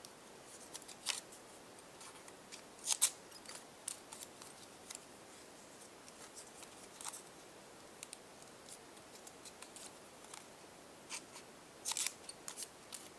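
Small scissors snipping a narrow paper strip while it is folded and creased by hand: scattered short, crisp snips and paper rustles, the loudest about three seconds in and a cluster near the end.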